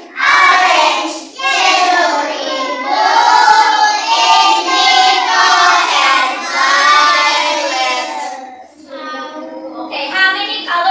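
A group of young children singing together in unison, dropping to quieter voices about eight and a half seconds in.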